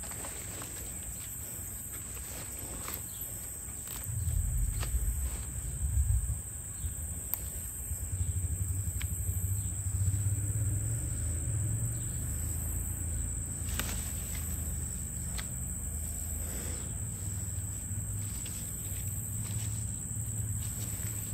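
Steady high-pitched insect chorus, with a low rumble on the microphone from about four seconds in. A few light clicks and rustles come as pokeweed leaves are picked by hand.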